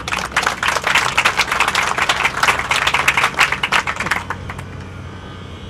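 Audience applauding, many hands clapping at once, dying away about four seconds in.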